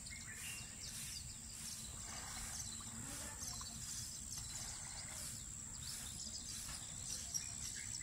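Quiet lakeshore ambience: a steady low rumble with faint, scattered bird chirps and a thin, steady high whine.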